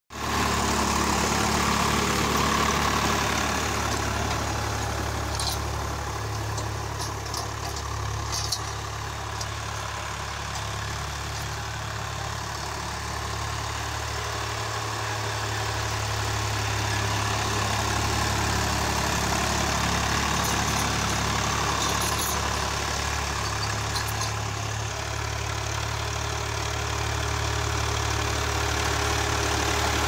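Swaraj 855 FE tractor's three-cylinder diesel engine running steadily while pulling a disc harrow through tilled soil, a little quieter in the middle stretch, with a few faint clicks.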